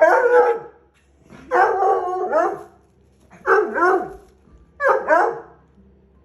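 A dog giving four bouts of drawn-out, wavering bark-howls, one after another with short pauses between them. The first bout is already under way as the sound begins.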